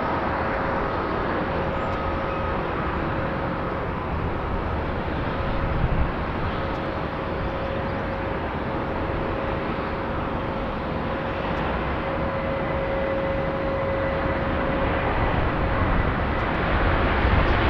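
Jet engines of a Boeing 737 MAX 8 (CFM LEAP-1B turbofans) running with a steady rushing whine and faint held tones, growing louder near the end.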